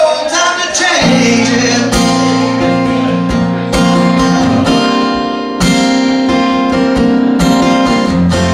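Instrumental break in a live song: acoustic guitar strummed over steady held chords, with the singer's last note fading out about a second in.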